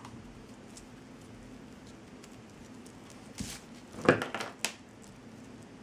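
Hand-handling noise from craft work with jute twine: a few short clicks and rustles about four seconds in, over a faint steady hum.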